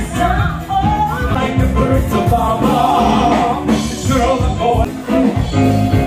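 Live stage-show music: a woman singing into a microphone over a band, with a steady beat.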